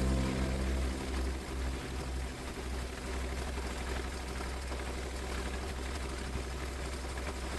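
A small motor running steadily: a low hum with a fast, even buzz.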